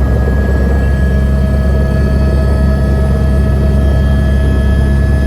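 Airbus H125 (AS350 Écureuil) helicopter running: its single turboshaft engine and rotor give a loud, steady deep drone with a steady turbine whine over it.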